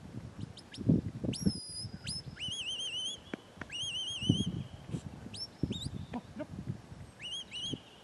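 Whistled sheepdog commands: several high whistles, each a fast upward swoop into a warbling held note, with short sharp chirps between. Low muffled thumps on the microphone are the loudest moments, about a second in and again past the middle.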